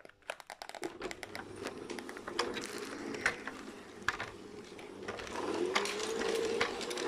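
Playmobil electric steam locomotive and its wagons starting off and running on plastic garden-gauge track, heard from on board the train: a steady clicking and rattling of wheels on the rails, with the motor's hum rising in pitch from about five and a half seconds in.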